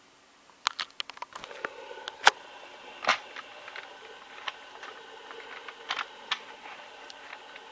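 Sharp plastic clicks and knocks from handling a cordless stick vacuum cleaner, over a steady motor hum with several fixed tones.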